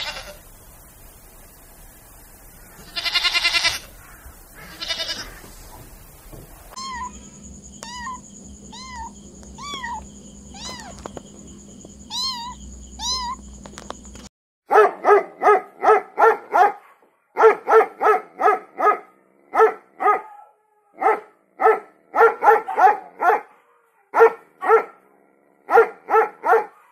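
A string of different animal calls. First come a few drawn-out calls, then short chirping calls over a steady hum, then from about halfway on quick runs of short, sharp calls at about four a second.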